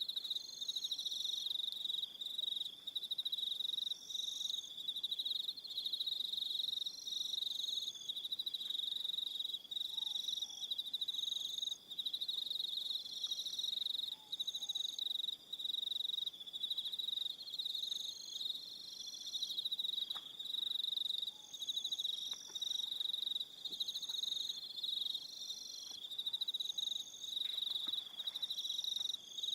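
Evening chorus of crickets: a dense, steady high-pitched trill, with short higher chirps repeating every second or two over it.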